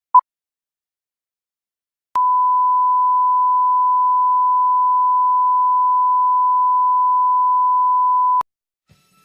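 A single short beep as the countdown leader hits 2 (the sync "2-pop"), then about two seconds later a steady test tone at the same pitch, the reference tone that goes with colour bars, lasting about six seconds and cutting off sharply.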